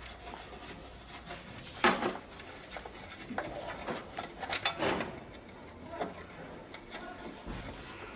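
A socket wrench working the bolts of a car's metal cover plate: scattered metal clicks and clinks, the loudest a sharp clink about two seconds in and a quick cluster a little before the five-second mark.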